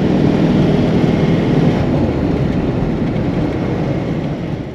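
Vehicle driving along a road: a steady rushing of road and wind noise that fades out near the end.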